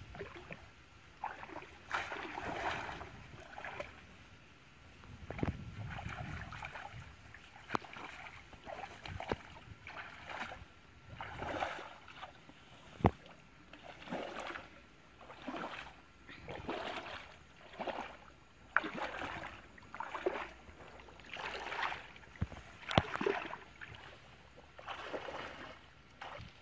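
Shallow paddy water splashing and sloshing as a person wades through it and works a bamboo fish trap in it, in repeated splashes about once a second. A few sharp knocks stand out among the splashes.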